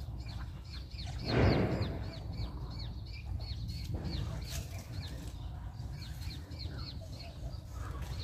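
Birds chirping continually, many short high falling chirps several a second, over a steady low rumble. A brief loud rush of noise sounds about a second and a half in.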